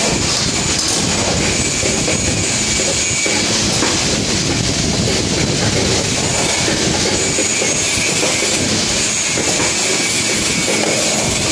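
CNC hanger-making machine running, feeding plastic-coated wire and bending it into a hanger: a steady mechanical clatter with irregular clicking and a faint high whine.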